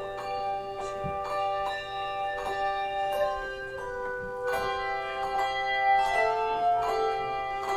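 Handbell choir playing a piece: bells struck in chords every half second or so, their tones ringing on and overlapping.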